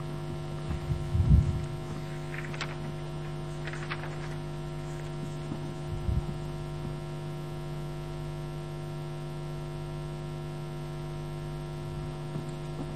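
Steady electrical mains hum with a stack of overtones on the recording, with a low thump about a second in and a smaller one about six seconds in.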